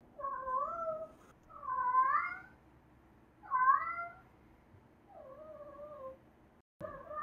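American Shorthair cat meowing repeatedly: a run of drawn-out meows about a second each, the fourth quieter and lower, and another beginning near the end.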